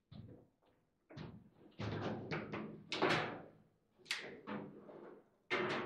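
Foosball table in fast play: the ball cracking against the players' figures and the table walls, with rods knocking. The hardest hit comes about three seconds in, and a quick run of knocks follows near the end.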